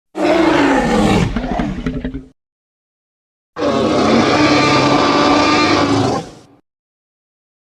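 Two Deinosuchus creature roars, a designed sound effect for the giant prehistoric crocodilian. The first lasts about two seconds and falls in pitch. After a second of silence, the second, steadier roar lasts nearly three seconds.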